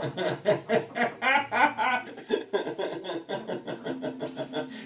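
A person laughing: a long run of quick, evenly repeated ha-ha pulses that fades out near the end.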